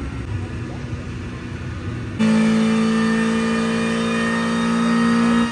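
Car engine rumbling, then a loud engine note held at steady high revs starting abruptly about two seconds in, the pitch flat, as in a burnout.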